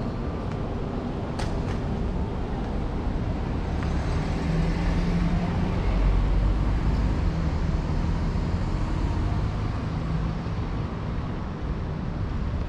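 Road traffic: a motor vehicle drives past close by, its engine loudest around the middle, over steady traffic noise.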